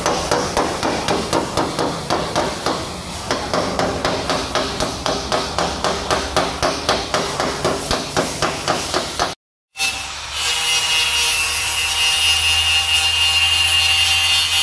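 Hammer beating sheet-metal body panels in rapid, even blows, about five a second. After a sudden break about nine and a half seconds in, a power tool runs steadily with a high whine.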